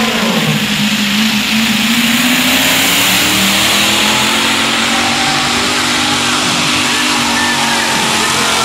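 Pulling tractor's engine running hard at high revs under load; its pitch sags a little about a second in, then climbs back and holds.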